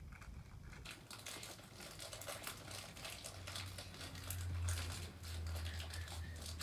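Plastic blind-bag wrapper crinkling and rustling as it is handled and torn open by hand. A steady low hum comes in about three seconds in.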